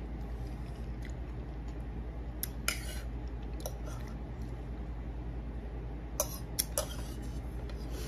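A metal fork clinking and scraping against a plate in a few short strokes, in two clusters about two and a half and six seconds in, over a steady low hum.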